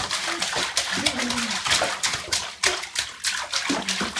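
Bathwater splashing as a toddler slaps the surface with both hands: a quick, irregular run of splashes.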